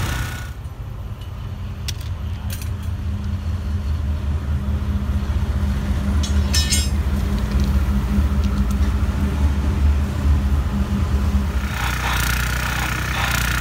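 Low steady rumble of a diesel locomotive running on the adjacent track, with a brief high squeal about six and a half seconds in. Near the end an engine-driven rail grinder starts grinding the thermite weld on the rail head, adding a harsh grinding hiss.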